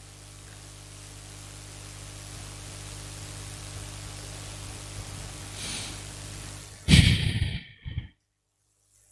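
Steady electrical hum and hiss of a handheld microphone's sound system, then about seven seconds in a loud breath blown into the microphone, after which the sound cuts out briefly.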